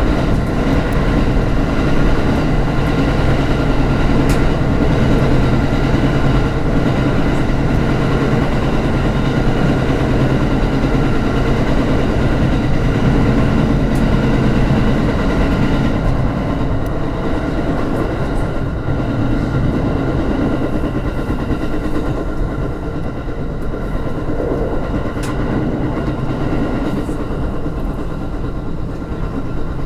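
Aoimori Railway electric train running at speed through a tunnel, heard from inside the train: steady running noise of wheels on rail, with a few sharp clicks. It eases a little in the second half.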